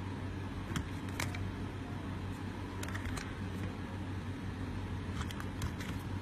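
Light clicks and taps of plastic phone cases being handled, a few single ones early, a cluster about three seconds in and several more near the end, over a steady low hum.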